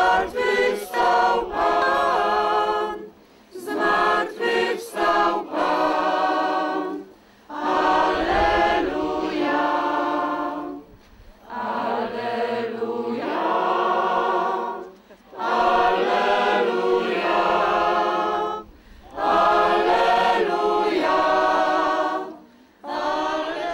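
A congregation of many voices singing a hymn together, in sung phrases a few seconds long with short breaks for breath between them.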